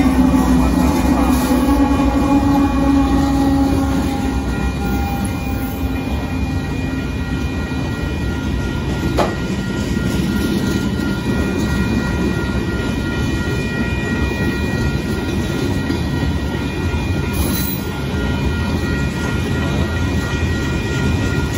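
Union Pacific freight train passing close by: the diesel locomotive's engine note at the start fades within a few seconds, then the gravel and hopper cars rumble and clack steadily over the rails. The crossing bell rings throughout, and a single sharp knock comes from the cars about 9 seconds in.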